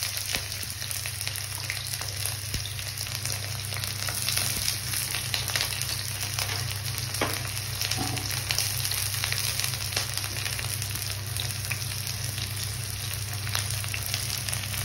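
Chopped onions sizzling steadily in hot oil in a kadai, fried until they start to brown, with a few brief clicks.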